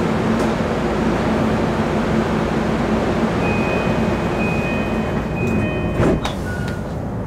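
Electric commuter train running along the track, heard from the driver's cab: a steady rumble of wheels on rail with a low hum that fades about five seconds in. A sharp clack comes about six seconds in.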